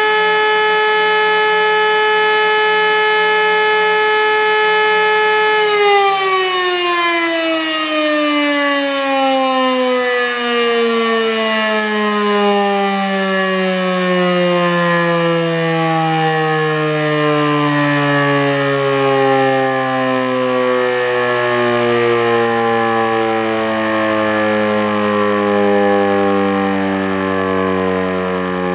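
Elektror E57 electric motor siren sounding a steady tone, then, about six seconds in, switched off: its pitch falls slowly and smoothly as the rotor winds down, still sounding at a low pitch near the end.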